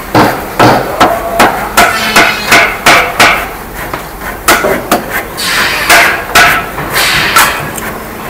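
Hammer blows striking a joint of a clamped wooden chair frame, about fifteen sharp knocks at two to three a second, with a brief pause a little before the middle.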